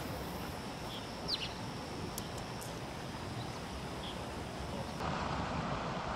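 Steady outdoor background noise with a bird's short, falling call about a second in and a few faint ticks about two seconds in; the noise gets louder about five seconds in.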